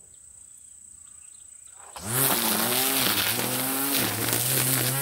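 String trimmer (weed eater) switching on about two seconds in and cutting weeds, its whirring pitch dipping and recovering as the line bites into the growth.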